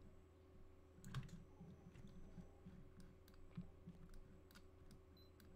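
Faint, scattered clicks of a computer mouse, its buttons and scroll wheel, starting about a second in, over a low steady hum.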